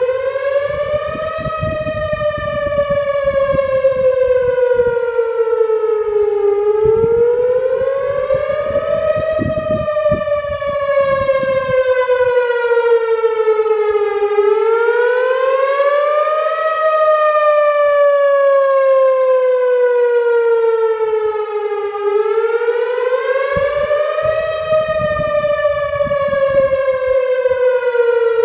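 Whelen Vortex electronic outdoor warning siren sounding a full wail on its monthly test. The tone rises for about two seconds, then falls for about five, and repeats about every seven and a half seconds.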